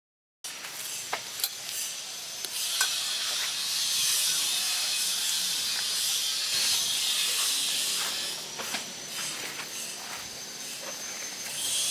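A steady hissing noise with scattered small clicks, starting abruptly about half a second in.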